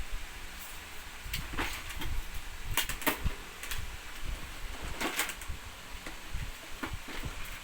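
A few light clicks and knocks, scattered and irregular, of small toys or play-kitchen pieces being handled, over a steady low rumble.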